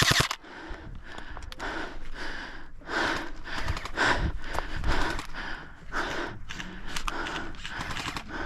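An airsoft rifle's full-auto burst ends right at the start, followed by a person's heavy breathing close to the microphone: repeated breaths about once a second.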